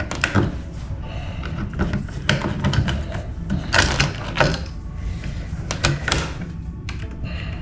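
Irregular clicks and light knocks of hand work on a wall light switch, as the switch is fitted into its electrical box and its mounting screws are started and driven in. The sound echoes a little in a small bathroom.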